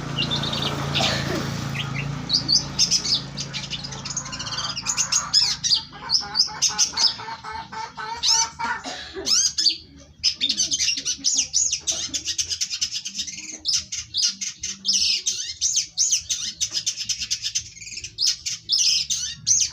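A songbird singing a rapid run of high chirps and trills, broken at first and nearly unbroken from about halfway through.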